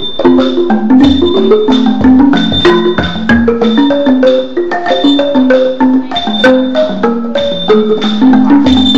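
Ranat thum, the Thai bass xylophone with wooden bars over a boat-shaped resonator, played solo with two mallets: quick, unbroken runs of low, mellow struck notes.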